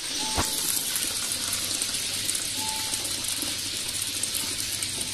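Water from an outdoor tap running and splashing onto wet paving stones, a steady hiss, with two brief faint squeaks.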